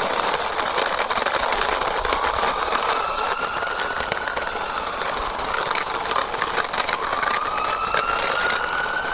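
Toy ambulance pushed by hand, its small plastic wheels rolling and rattling with many small clicks. A siren wail rises slowly and then falls, twice.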